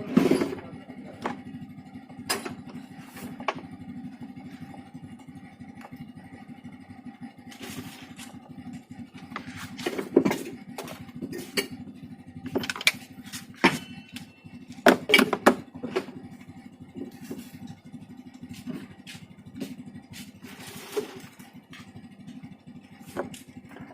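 Kärcher K7 pressure washer's motor running with a steady hum, broken by frequent sharp clicks and knocks.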